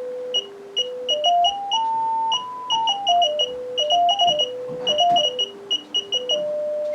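Re-coned speaker from a 1961 Philips B5X04A tube radio reproducing a pure test tone from a signal generator, the pitch stepping up and down between roughly 300 Hz and 1 kHz as the frequency is turned by hand, with short high ticks at many of the steps. The clean tone shows the repaired speaker is working.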